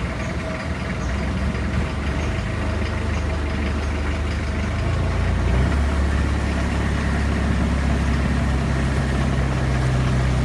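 Longtail boat's engine running steadily as the boat moves along the canal; a little over halfway through its drone deepens and grows louder as it picks up speed.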